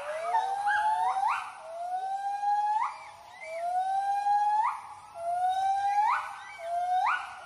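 White-handed gibbons giving their territorial hooting call: a series of long whooping hoots, about one a second, each rising slowly and then swooping sharply up in pitch, with a second voice overlapping.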